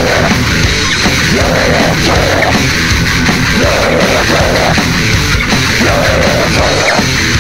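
Heavy metal song: distorted electric guitars, bass and drums playing loud, with a riff figure repeating about once a second.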